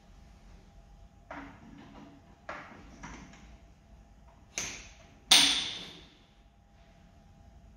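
Four sharp metallic knocks and clanks from handling the Volumec Joytap Evo 2 electric tapping arm and its tap holder. The last, about five seconds in, is the loudest and rings on for about a second.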